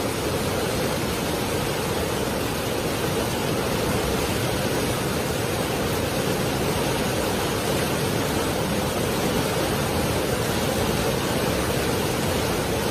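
Fast, muddy floodwater rushing under a footbridge and churning against its pier: a steady, unbroken rushing noise.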